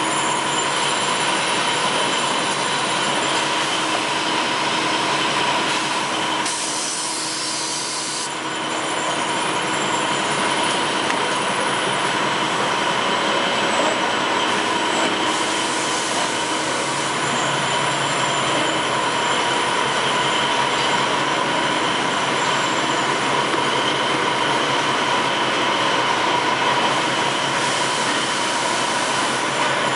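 V-fold hand towel production machinery running: a steady mechanical clatter with a constant whine. There is a brief hiss about seven seconds in.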